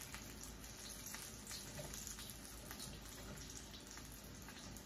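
Rolled potato tacos frying in hot oil: a steady sizzle with many small crackles and pops.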